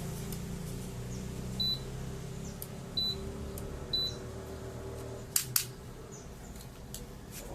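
Three short, high beeps from a washing machine's control panel, whose display is dead, over a steady low hum; two sharp clicks follow a little past halfway.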